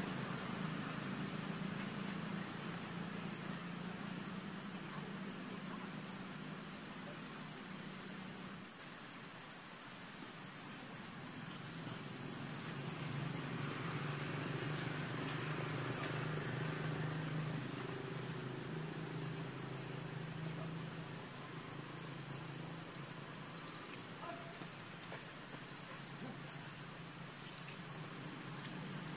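Steady high-pitched insect drone, with softer chirps repeating every few seconds and a low hum beneath.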